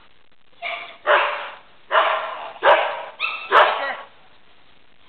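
Dog barking: about six loud, short barks in quick succession, starting just under a second in.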